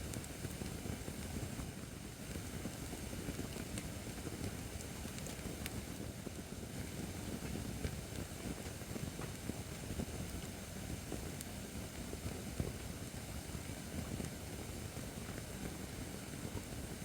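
Acacia firewood burning in a fire pit stand: a steady low rush of flame with occasional small crackles and pops.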